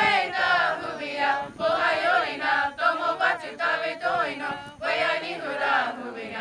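Youth choir singing a Comanche hymn a cappella, in phrases with short pauses between them.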